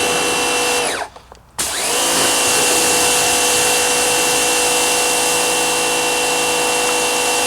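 Small electric pressure washer's motor and pump running with a steady whine. It cuts out briefly about a second in, then spins back up, the whine rising in pitch and settling.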